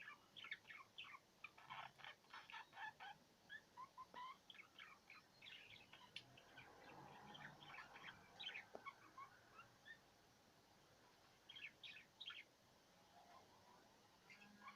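Pair of budgerigars chattering faintly: quick runs of short chirps and warbles with brief pauses between them.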